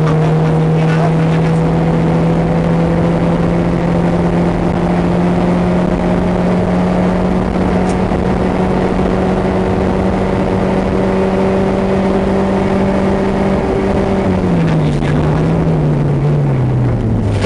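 Car engine running at a steady cruise, heard from inside the cabin over tyre and road noise on a gravel road. Its note creeps slowly higher, then drops about fourteen seconds in as the engine slows.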